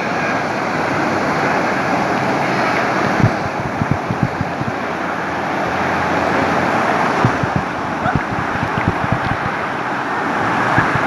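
Loud, steady rush of moving water, with wind buffeting the microphone in irregular low thumps.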